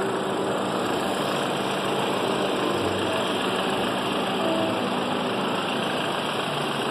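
BMW 2.0-litre turbocharged petrol engine idling steadily and evenly after a new timing chain has been fitted, running smoothly with the camshaft timing fault cleared.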